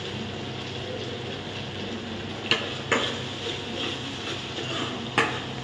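Onion-and-masala gravy frying in a pan, a steady sizzle with a low hum under it. Three light knocks cut in, two close together about halfway through and one near the end.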